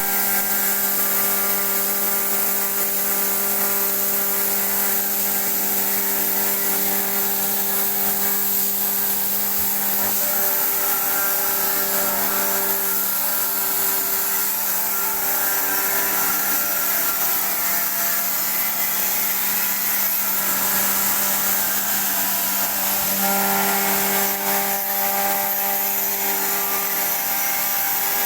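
Industrial air compressors running: a steady, loud mechanical hum with a strong low tone and a hiss of air above it, the tone shifting slightly a couple of times.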